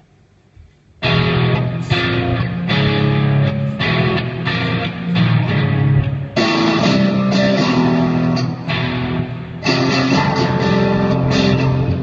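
Rock band playing loud strummed guitar chords over bass guitar, starting abruptly about a second in, with short breaks between phrases.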